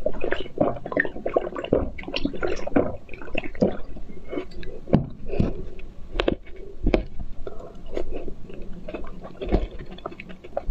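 Close-miked mukbang eating and drinking sounds: wet slurping and sucking of a drink, then a run of sharp clicks and wet chewing and squishing as food is taken with a fork and eaten.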